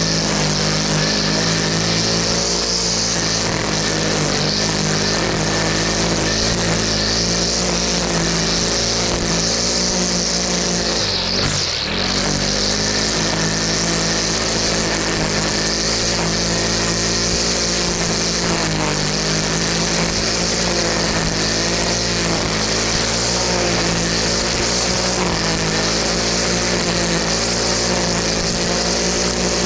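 Honda small petrol engine running steadily under load, its pitch wavering and dipping sharply for a moment about twelve seconds in, with a steady high hiss over it.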